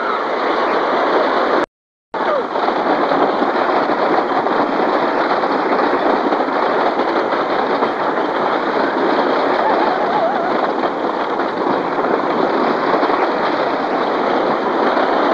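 Flyer Comet wooden roller coaster train rattling and clattering steadily along its wooden track, heard from on board. The sound cuts out to silence for a moment about two seconds in.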